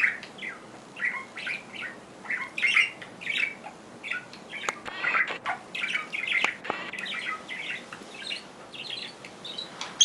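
Pet parrot chattering in a string of short chirps and squawks that vary in pitch, with a few sharp clicks among them.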